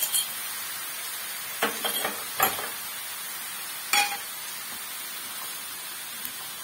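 Diced eggplant and peppers sizzling steadily in hot oil in a frying pan, stirred with a wooden spoon, with a few sharp knocks against the pan in the first four seconds.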